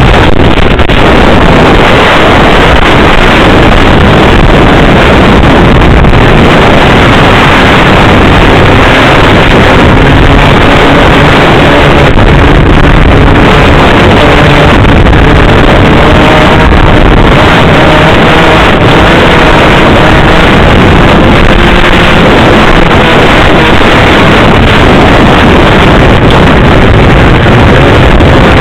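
Snowmobile engine running at speed while being ridden, very loud and steady, its note climbing gradually in the second half.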